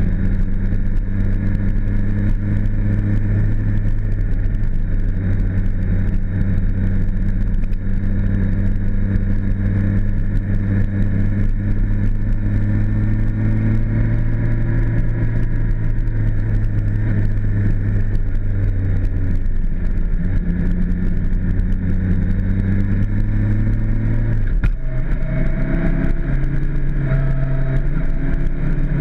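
Suzuki GSX-R600 inline-four engine running steadily under way down a winding road, its note changing abruptly about three-quarters of the way through.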